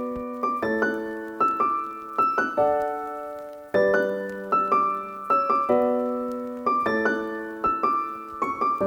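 Background piano music: gentle chords and notes struck about once a second, each ringing and fading away.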